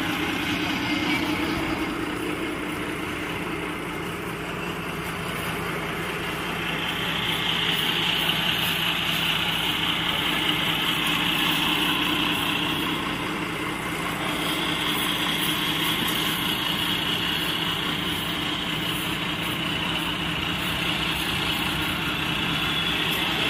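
Bus engine running steadily with a low hum, a little louder for a few seconds in the middle.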